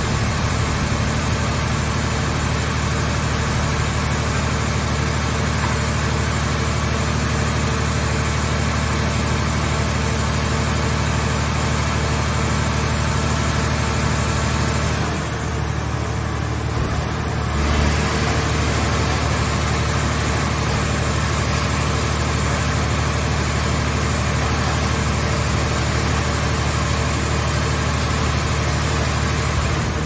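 Portable car scrap baler's hydraulic power unit running steadily with a low hum and hiss. About halfway through, the hiss drops away for a couple of seconds, then comes back with a brief surge.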